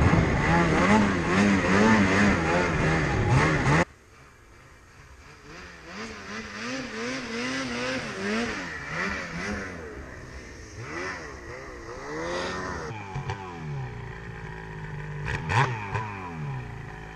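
Snowmobile engine revving up and down hard for about four seconds, then an abrupt change to quieter snowmobile engines revving farther off, rising and falling in pitch. In the last few seconds, a steady engine hum from an idling sled with a couple of sharp clicks.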